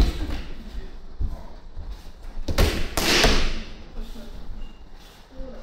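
Aikido partner thrown with a jo and taking a breakfall on tatami mats: several thuds, with the loudest thud and a brushing slide across the mat about three seconds in.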